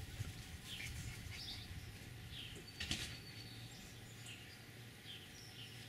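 Faint outdoor background of scattered, distant bird chirps, with a single soft knock about three seconds in.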